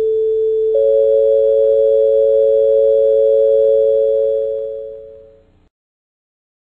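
Two steady electronic tones sounding a major third, A and C sharp. The A sounds alone first, the C sharp joins about a second in, and both hold and then fade away around five seconds in.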